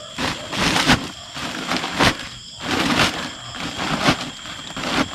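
Woven plastic sack rustling and crinkling in a string of irregular bursts with a few knocks, as hands dig in it and tip it to pull out live fish.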